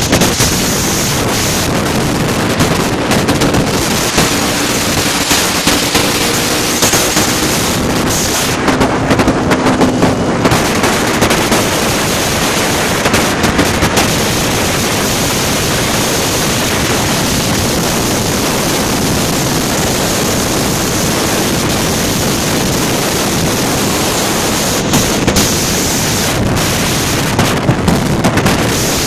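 Heavy wind buffeting the microphone at riding speed, gusting in short bursts. Motorcycle engines run underneath it and come through a little more clearly for a few seconds about a quarter of the way in.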